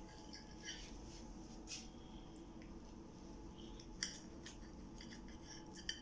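Knife and fork cutting through a soft rolled crepe on a plate: faint scrapes and light clicks of the cutlery against the plate, the sharpest click about four seconds in.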